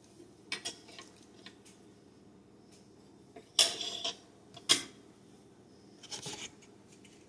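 Hard clear-plastic toy pieces handled and set down on a wooden tabletop: a few scattered clicks and knocks, the loudest a short scraping clatter a little over three and a half seconds in, followed by a sharp click about a second later.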